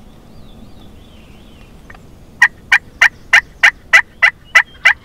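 Wild turkey yelping: a run of nine loud, evenly spaced yelps, about three a second, starting about halfway in.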